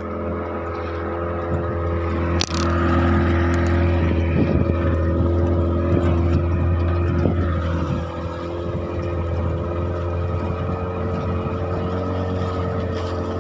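Small wooden fishing boat's engine running at a steady speed while the boat is underway, a constant low hum, with one sharp knock about two and a half seconds in.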